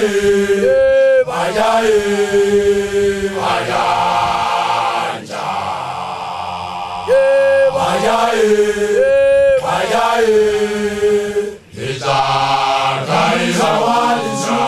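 Sesotho initiation-school song chanted by a group of voices in call and response: a leader's high held calls, twice near the start and twice about halfway through, are answered by the group.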